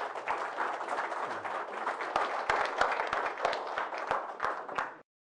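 Audience applauding, with individual hand claps standing out in the patter. The applause cuts off abruptly about five seconds in.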